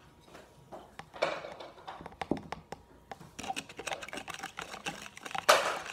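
Watery glue-and-borax slime being stirred in a small bowl: irregular clicks and taps, sparse at first and much busier about three seconds in, with one louder click near the end.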